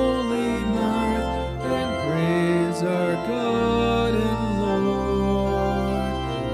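Organ playing a hymn in held chords, the notes changing every second or so.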